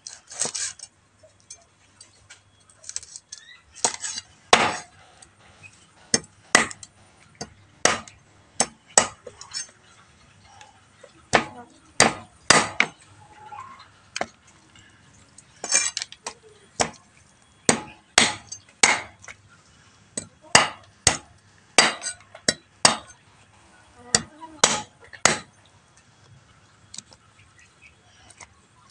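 Large kitchen knife chopping raw chicken on a round wooden chopping block: sharp, separate chops at an uneven pace, about one or two a second, some in quick pairs and with short pauses between runs.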